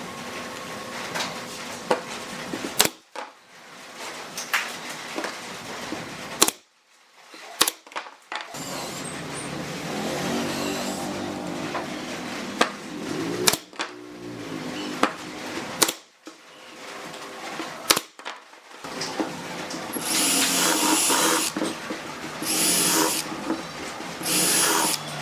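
Pneumatic brad nailer firing into pine boards: about six sharp single shots, several seconds apart. Near the end a Makita cordless drill drills pilot holes in three short bursts with a high whine.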